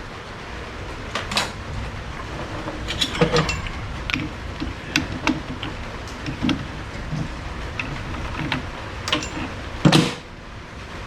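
Workbench handling noises: scattered light clicks and knocks of small tools and parts being picked up and set down, with one louder knock about ten seconds in, over a steady background hiss.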